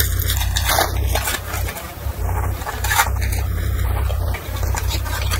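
Trading-card packs and cards being handled: irregular rustling, crinkling and scraping of wrappers and card stock, with sharper crinkles about a second in and again near three seconds. A steady low electrical hum runs underneath.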